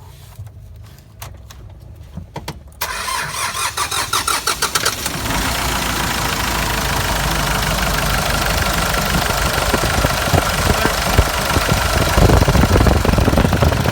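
Hyundai Porter 2's D4CB four-cylinder common-rail diesel is cranked by the starter for about two seconds, then catches and runs steadily, after a few clicks at the start. This is the hard-starting engine that is being diagnosed for trouble code P1188.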